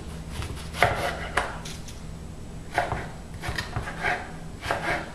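Kitchen knife cutting tomato on a cutting board: about six separate, irregular chops.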